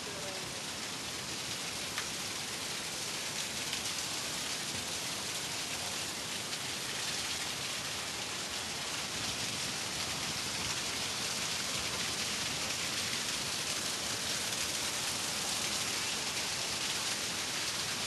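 Underground cave waterfall pouring steadily onto rock: a constant, even rush of falling water.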